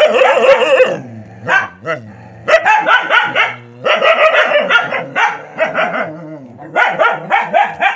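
Dogs barking excitedly in play, several bouts of quick barks with short pauses between them.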